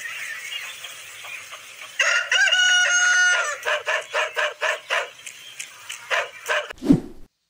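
Rooster crowing, a cock-a-doodle-doo held for over a second starting about two seconds in, followed by a quick run of clucks, about five a second. A short low thump comes just before the sound cuts out.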